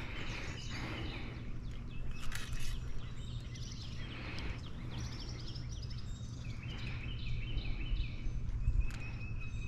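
Small birds chirping on and off, over a steady low hum.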